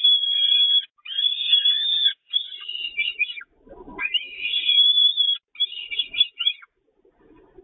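Peregrine falcons calling: five runs of high, harsh calls about a second each, split by short breaks, stopping about a second before the end. A low scuffle comes about halfway through.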